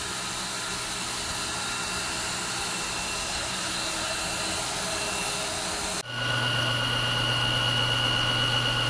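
Tineco Floor One S5 Steam wet-dry floor washer running, a steady motor whir with a thin whine. About six seconds in the sound changes abruptly to a louder, steadier whine over a low hum.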